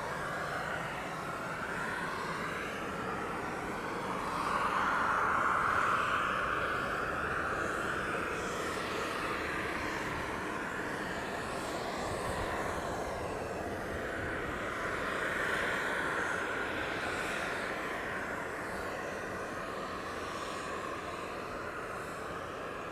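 Jet engines of a Boeing 767-300ER running, a steady whine over a broad rush that swells twice, about five seconds in and again around fifteen seconds.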